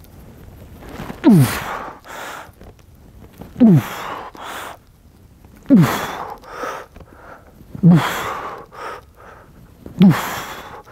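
A man's forced, grunting exhalations as he presses heavy dumbbells overhead in a seated shoulder press: five loud ones, about one every two seconds, each falling in pitch, with quick breaths drawn in between.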